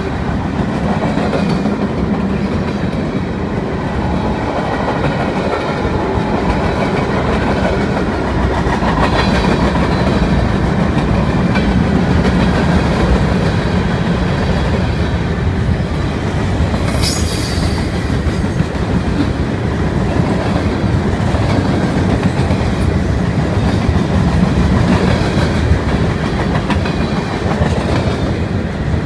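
Freight train cars (flatcars, covered hoppers and boxcars) rolling past in a steady rumble, the wheels clicking over the rail joints. A brief high screech comes about halfway through.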